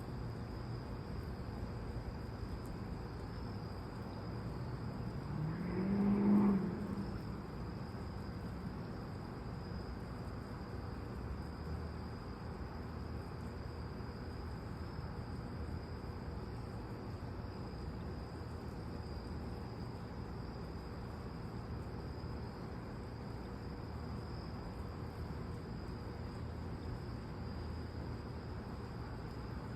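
Night insects chirring steadily, a constant high-pitched drone over a soft background hiss. About six seconds in, a brief rising hum swells up and fades within a second or two; it is the loudest sound here.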